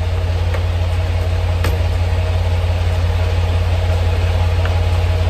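Semi tractor's diesel engine idling steadily, a loud low hum, with a few sharp metallic clicks as the air-line gladhands are coupled to the trailer.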